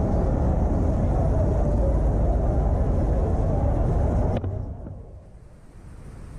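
Street ambience with a heavy, low traffic rumble. It drops off sharply about four seconds in, leaving quieter background street noise.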